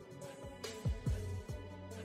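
Background workout music with a steady beat: deep kick drums that drop quickly in pitch, a held bass note and crisp percussion.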